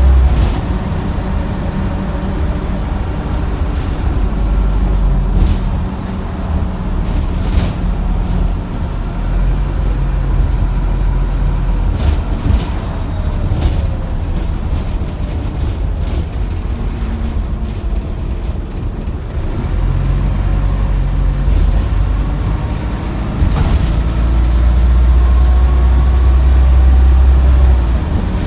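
Optare Solo bus engine and drivetrain heard from on board, a deep, loud drone that swells as the bus pulls harder, eases off in the middle, then builds again for several seconds near the end, with a whine shifting in pitch and occasional knocks and rattles. The bus broke down the day before, and its running sounds unhealthy, which the uploader calls horrible.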